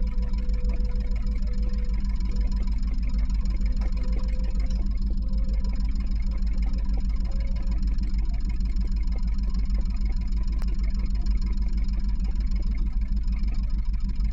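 Catalina 30 sailboat's inboard engine idling steadily with an even low putter, out of gear while the boat sits in its slip.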